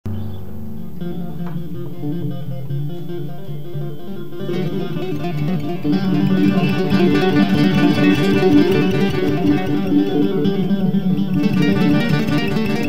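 Small jazz group improvising on acoustic and electric guitars, upright bass and saxophone, with sparse low notes at first that grow busier and louder from about six seconds in.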